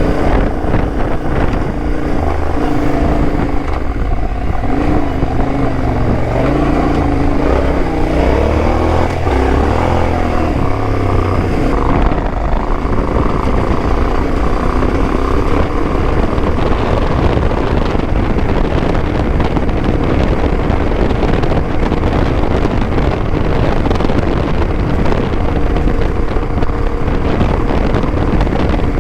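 Yamaha Ténéré 700's parallel-twin engine and exhaust under way on a dirt trail. Its pitch rises and falls with the throttle through the first twelve seconds or so. After that the engine holds steadier and wind noise on the microphone takes over much of the sound.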